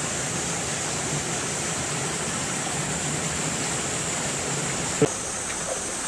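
Shallow mountain stream running over rocks, a steady rushing of water. A single short knock about five seconds in.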